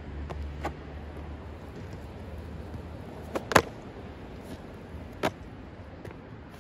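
Skateboard on concrete: the wheels rolling at first, then the board knocking down on the concrete, a sharp double clack about three and a half seconds in and another single clack about five seconds in.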